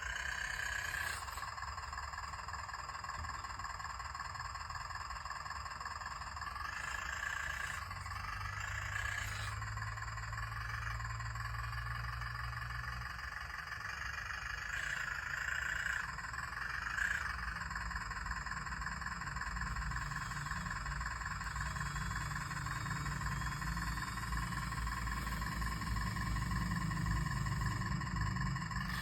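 Radio-controlled excavator's small electric motors whining steadily. The pitch rises and falls briefly a few times as it works.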